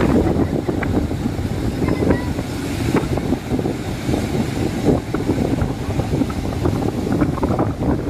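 Strong wind buffeting the microphone in gusts, over the wash of storm waves breaking on the shore.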